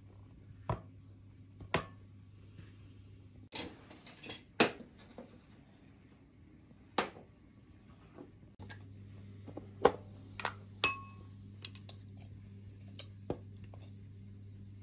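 Scattered clinks and knocks of tableware as a metal spoon and glass jars and bowls are handled and set down on a table. One clink, about eleven seconds in, rings briefly like glass. A low steady hum runs underneath.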